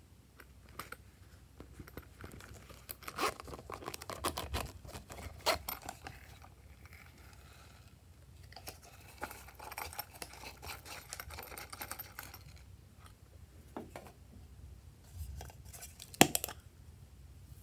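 Hard plastic containers handled by hand: scraping, crinkling and clicking of plastic in two busy stretches, with one sharp plastic click near the end.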